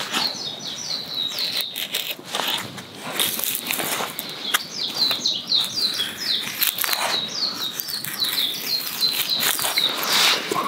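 A small songbird singing phrases of rapid, repeated descending chirps, with a few scraping strokes of a knife shaving curls off a wooden stick to make a feather stick.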